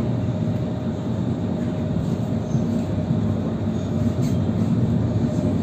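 Running noise of a moving tram heard from inside the passenger car: a steady low rumble with a faint steady tone above it.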